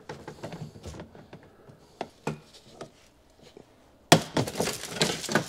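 Plastic underbody shield and its clips being worked loose: a few light clicks and knocks, then about four seconds in the shield drops free with a sudden clatter and a rustle of dry leaves spilling out of it.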